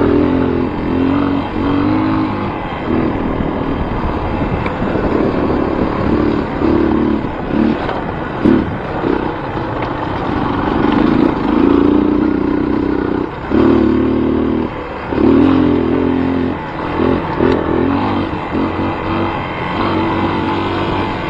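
Motor vehicle engine running and revving, its pitch rising and falling, with short drops in level every few seconds.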